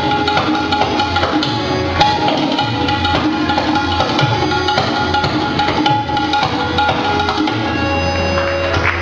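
Tabla solo: rapid, dense strokes on the tabla pair over a harmonium playing the lehara, the repeating melodic accompaniment cycle, in steady sustained tones.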